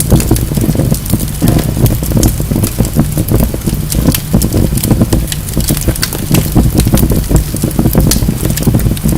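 Wood logs burning in a fireplace: a steady low rumble of flames with frequent irregular sharp crackles and pops.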